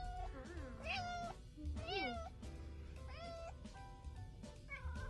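Tortoiseshell cat meowing repeatedly, about five meows a second or so apart, each rising then falling in pitch, with background music underneath.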